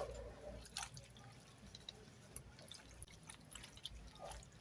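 Faint scattered wet clicks and small taps of chicken being handled in its soy and calamansi marinade.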